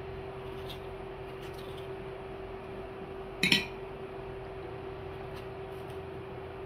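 A single sharp clink of dishware being knocked or set down, two quick strikes about halfway through, over a steady low hum.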